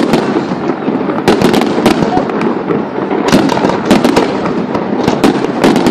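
Fireworks going off: many sharp, irregular bangs and crackles, bunched in rapid clusters about a second and a half in, around three and a half seconds, and near the end, over a steady dense din.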